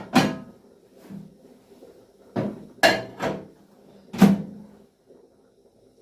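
A microwave oven being loaded: sharp clunks and knocks of its door and the dish, one just after the start, three close together in the middle and one more near the end.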